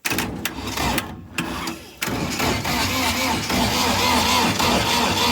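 Starter motor cranking a Volvo Penta D2-55 marine diesel engine over without it firing, in a short burst and then again for longer from about two seconds in. It turns over with full compression after four years of sitting unused.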